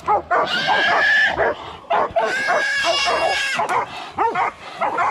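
A pack of hunting dogs barking and yipping around a caught hog, with two long, high squeals of about a second each, one near the start and one in the middle.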